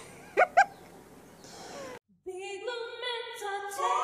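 Two quick rising chirps, the loudest sounds here, just under a second in. After a brief dropout to silence at about halfway, intro music starts: layered, held voice-like notes stepping from pitch to pitch in an a cappella style.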